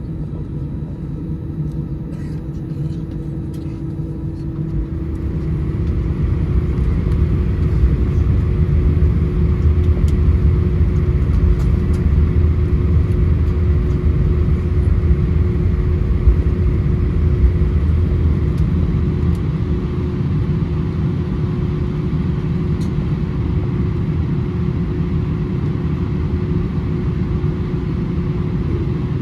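Cabin noise inside an Airbus A319: a steady engine drone and rumble that grows louder about five seconds in and then holds.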